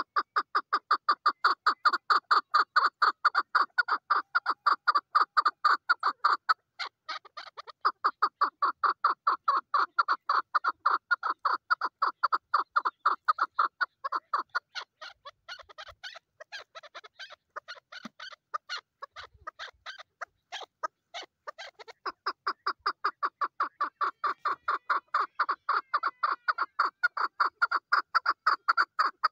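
A female chukar partridge calling: a long run of quick, clucking notes, about five a second. It pauses briefly about seven seconds in, goes softer through the middle, and grows loud again near the end.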